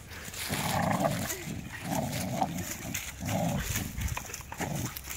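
American Bully dogs play-growling while tugging on a spring-pole rope, in about four rough bursts roughly a second apart.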